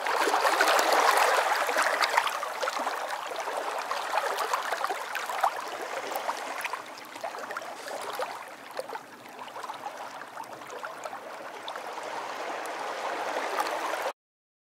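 Water running and bubbling, with a dense crackle of tiny pops. It is loudest in the first couple of seconds, eases a little, then cuts off abruptly near the end.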